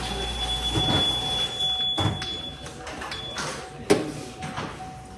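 A car's hood being popped and raised: a few knocks, then a sharp metallic clunk about four seconds in, with a faint steady high tone under the first half.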